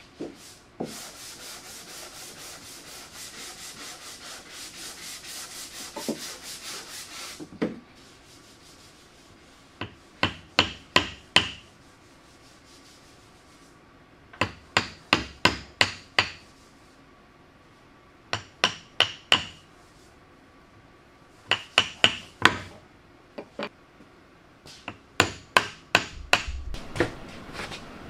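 A wood chisel cutting a square pocket into a wooden panel. It starts with several seconds of quick, even scraping strokes, then comes a series of sharp taps from a wooden mallet striking the chisel, in five short bursts of about four to seven blows each.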